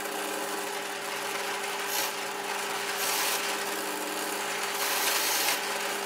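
Bench drill press motor running with a steady hum while a hole saw cuts into a wooden block, scoring a centering mark. The rasp of the teeth in the wood grows in spells, about two, three and five seconds in.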